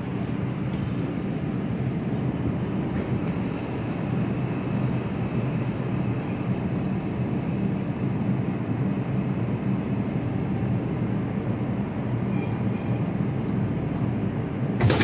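New York City subway car heard from inside while moving, a steady low rumble of wheels on rail. A sudden louder noise breaks in at the very end.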